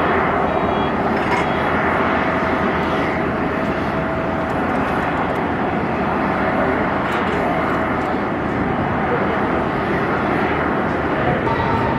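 Jet airliner engines: a loud, steady noise with faint whining tones over it.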